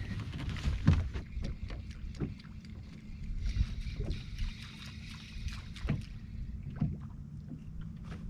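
Small fishing boat on the water: scattered knocks and bumps against the hull over a steady low rumble, with a stretch of hiss about three to six seconds in.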